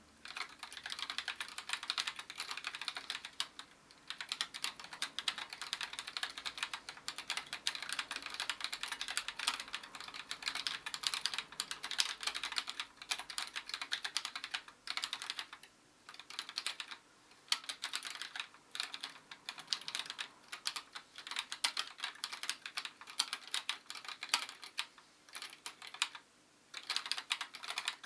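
Steady fast typing on an Esrille NISSE mechanical keyboard with Gateron Clear 35g light linear switches: a rapid run of keystrokes, broken by a few brief pauses.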